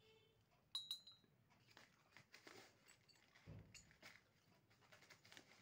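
Near silence with faint taps and handling noises of small objects, and one sharp little clink about three-quarters of a second in.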